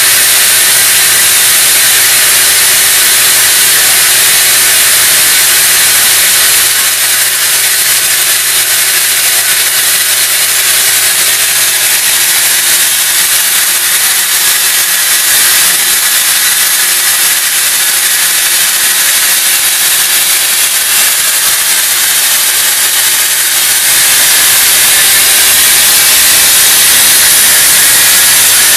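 Loud steady hiss with a faint low hum underneath. It eases slightly about seven seconds in and comes back up near the end.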